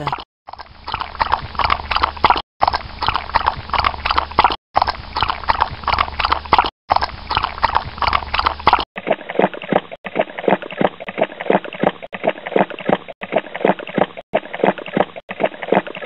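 A spaniel lapping water from a metal bowl in quick, rhythmic laps, broken off by short gaps every two seconds or so. About nine seconds in, a golden retriever takes over, lapping fast from a plastic water bottle held to its mouth.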